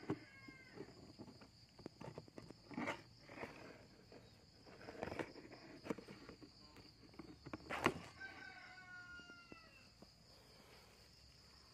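A rooster crowing in the distance near the start and again about eight seconds in, over a steady high-pitched insect drone. Several short knocks and rustles come from a plastic container being handled, the loudest about eight seconds in.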